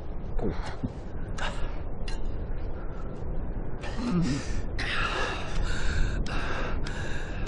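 A person gasping for breath: a few scattered gasps, then a quicker run of loud, breathy gasps from about four seconds in.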